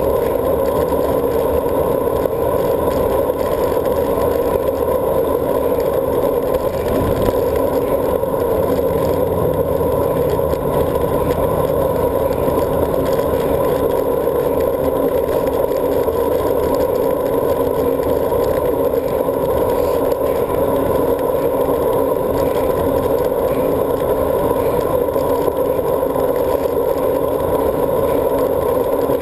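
Steady rush of wind and tyre noise from a road bike riding at speed, picked up by a GoPro Hero sealed in its housing on the handlebars.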